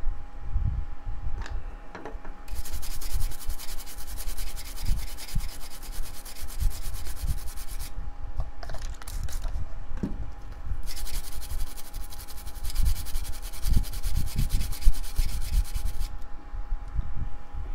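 A toothbrush scrubbing the solder side of a freshly soldered circuit board. It comes in two bouts of quick back-and-forth strokes, each about five seconds long, with a pause of about three seconds between them. Soft low knocks from handling the board run underneath.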